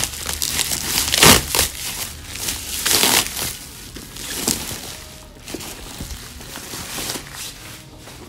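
Plastic packaging and bubble wrap crinkling as a football boot is pulled out of it. The crackling comes in irregular handfuls, loudest in the first few seconds, then thins out.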